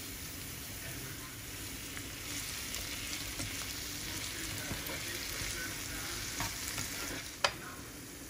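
Diced potatoes, onion and tomato sizzling in a frying pan while a black plastic slotted spatula stirs and scrapes them; the sizzle picks up about two seconds in. Near the end, a single sharp tap stands out above the frying.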